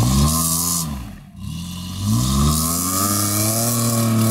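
Jeep Wrangler's engine revving under load in deep mud: the revs rise, fall away to a brief lull about a second in, then climb again and hold high.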